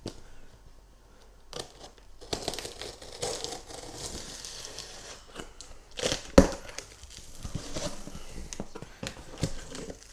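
Shipping carton being cut open with a knife: the blade slitting packing tape and cardboard, with tearing and crinkling sounds and a sharp knock about six seconds in.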